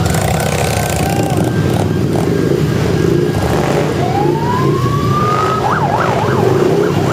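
Harley-Davidson V-twin motorcycle engines rumbling together at parade pace. About four seconds in a siren starts with one rising wail, then switches to a fast up-and-down yelp near the end.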